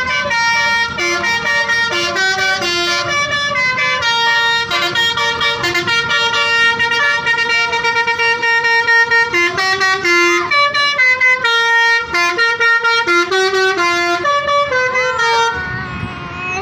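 A tour bus's telolet 'basuri' musical horn playing a tune: a quick run of bright horn notes stepping up and down in pitch, with a few longer held notes.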